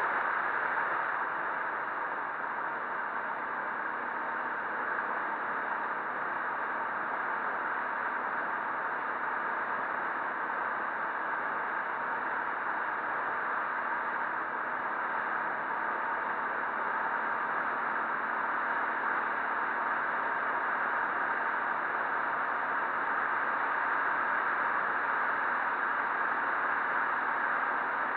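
Steady rushing wind noise over a helmet-mounted action camera on a moving KTM 400 enduro motorcycle, with no clear engine note.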